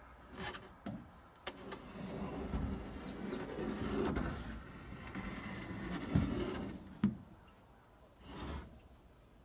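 Heavy timber-frame bent being pushed upright by hand: drawn-out creaking from the timbers and their joints under load, loudest in the middle, with a few sharp knocks.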